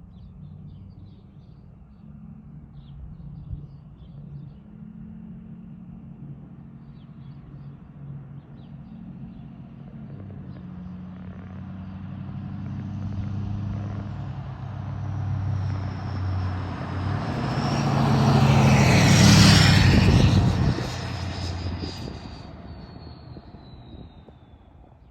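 Ford 6.7 Powerstroke diesel with a KC Whistler Stage 1 turbo and 5-inch exhaust driving past. The engine note builds, stepping up about ten seconds in, and peaks about three-quarters of the way through. A high turbo whistle drops in pitch as the truck goes by, then the sound fades away.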